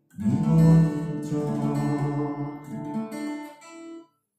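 Acoustic guitar strumming the closing chords of a song, each chord left to ring and fade. The sound cuts off suddenly about four seconds in.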